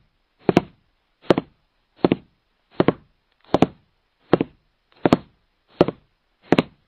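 A steady series of thuds, about ten in all, one every three-quarters of a second, each a quick double hit with a short ring after it.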